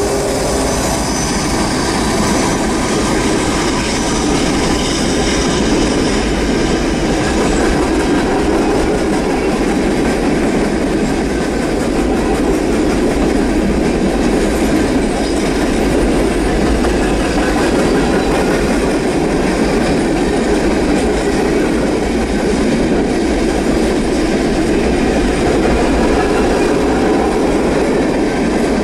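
Norfolk Southern freight train cars rolling past close by: a steady, loud rumble of steel wheels on the rails, with faint thin wheel squeal in the first few seconds.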